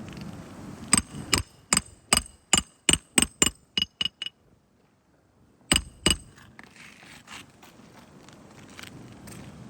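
Hand hammer striking, with a ringing sound on each blow: a run of about eleven quick blows that speed up, then a short pause and two more blows.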